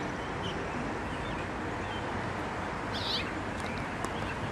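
Short, high calls of an American robin. There are a few small chirps about half a second in and a clearer call about three seconds in, over a steady background hiss.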